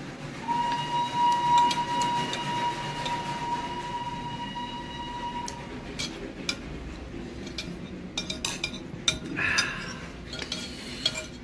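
Metal spoon clinking and scraping against a ceramic soup bowl and plate as soup is ladled over momos. A steady, high whistle-like tone starts about half a second in and stops about six seconds in.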